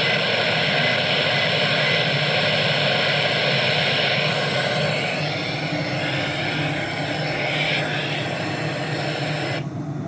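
Steady hiss of radio static from a receiver with no programme on it, under a low hum. The upper part of the hiss cuts off abruptly near the end.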